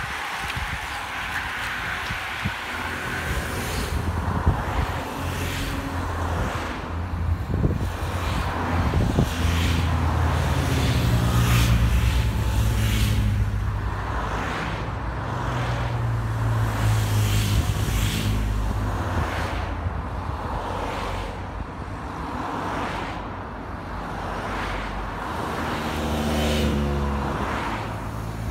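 Race support cars passing close by one after another, the engine and tyre noise of each rising and fading.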